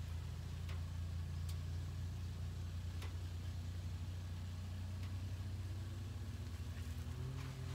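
An engine idling steadily: a low, even hum with a slight regular pulse and a few faint clicks.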